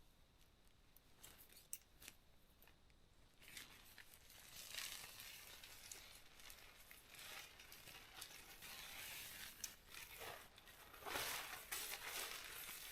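Faint rustling and crinkling of nylon camping gear being handled, with a few small clicks. The rustling picks up about three and a half seconds in.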